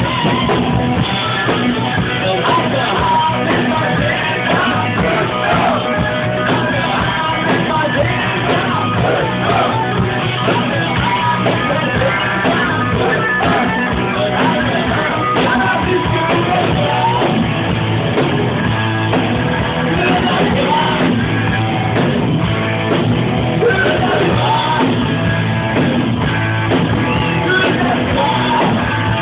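Rock song with sung and shouted vocals over electric guitar and a steady low bass.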